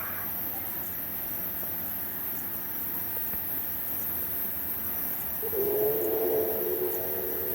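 Unidentified snore-like noise, one of a series repeating every few seconds: a higher drawn-out tone dies away at the start, and a lower drawn-out tone comes in about two thirds of the way through and holds for a couple of seconds. Insects chirp faintly and steadily underneath.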